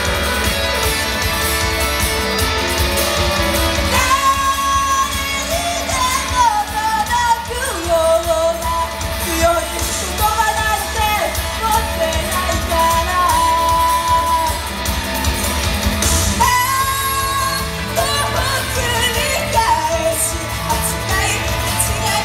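Idol-group pop-rock song performed live in a live house: a guitar-driven band backing, with a sung melody coming in about four seconds in and held notes over a steady bass.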